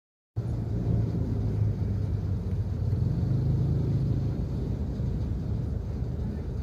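Steady low rumble of road traffic and engine noise, cutting in abruptly about a third of a second in.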